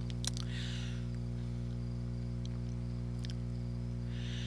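A steady low hum with several evenly spaced overtones, and a few faint clicks near the start and about three seconds in.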